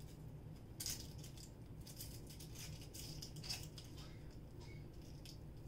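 Faint, scattered clicks and crackles of a red onion being cut and its papery skin peeled over a plastic cutting board, with a steady low hum underneath.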